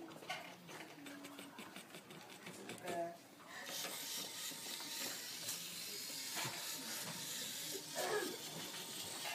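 Moway robot's small geared drive motors whirring faintly as it drives along the line track, with light ticking; a steady hiss comes in about three and a half seconds in.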